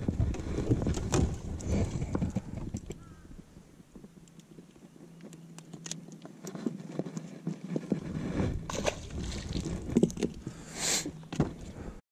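Knocks, thumps and clicks of a largemouth bass and gear being handled on the deck of a bass boat. A steady low hum comes in about three seconds in.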